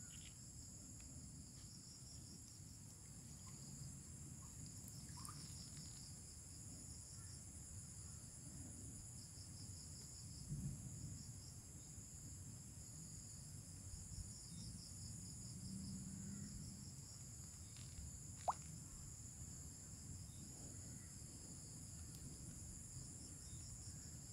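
Faint, steady insect chirping in high-pitched pulsing trills, over a low background rumble, with one brief sharp chirp about three-quarters of the way through.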